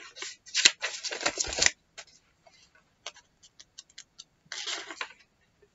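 Sheets of paper rustling as pages are handled, in two bursts, about half a second in and again near the end, with scattered small clicks between.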